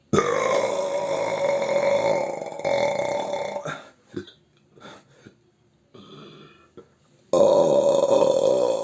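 Two long, loud deliberate burps: the first starts just after the beginning and lasts about three and a half seconds, and after a pause with a few faint short noises a second one begins near the end.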